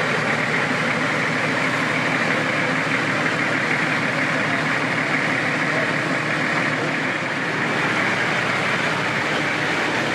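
Off-road 4x4 vehicle's engine running steadily, a dense even mechanical noise that holds the same level throughout.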